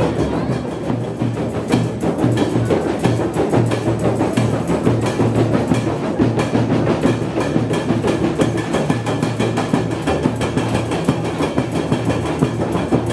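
Music driven by drums and percussion, a dense run of quick strikes over a steady low bass.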